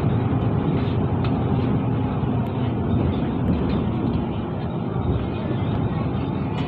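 Mercedes-Benz Citaro diesel city bus driving along, heard from inside the passenger cabin: a steady low drone of engine and road noise.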